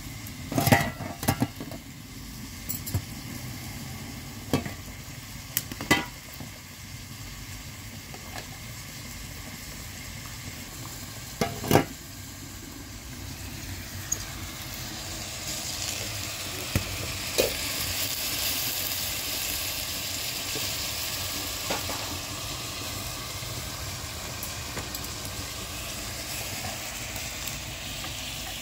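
Chopped onions sizzling in a frying pan over a wood fire, with sharp clinks of a metal spoon stirring and knocking against the pan, mostly in the first dozen seconds. The sizzle grows louder about halfway through.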